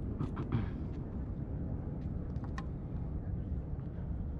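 Steady low rumble of wind on the microphone, with a few sharp taps in the first half second and again about two and a half seconds in.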